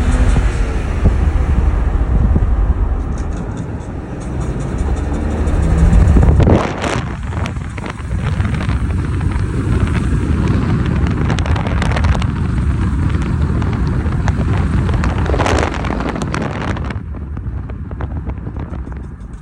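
BMW E60 driving, with engine and road rumble and wind buffeting the microphone. A faint pitched squeak comes in under load. There are two brief louder rushes of noise, about six seconds in and again around fifteen seconds.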